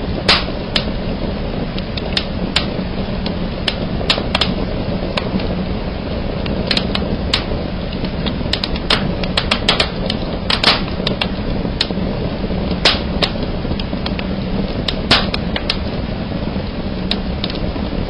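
Wood fire burning in a fireplace: irregular sharp crackles and snaps, a few louder pops among them, over a steady low rush of the flames.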